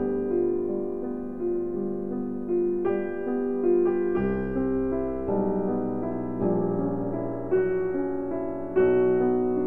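Piano music: a line of notes played one after another over held lower notes.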